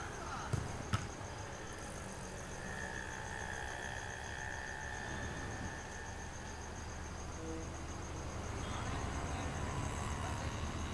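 Outdoor ambience with an insect chirping in a fast, even pulse. Two sharp knocks come about half a second and a second in, and a low rumble grows louder near the end.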